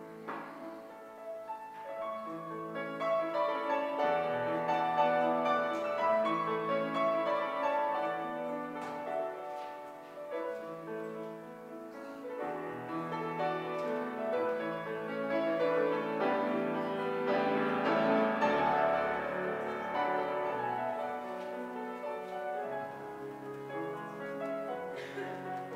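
Slow instrumental keyboard music with held, overlapping chords, growing louder a few seconds in and swelling again past the middle.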